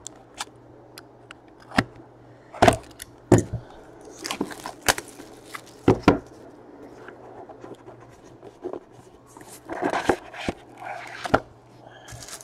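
Plastic shrink wrap being slit and peeled off a cardboard trading-card box, crinkling, with a series of sharp knocks and taps as the box is handled on the table.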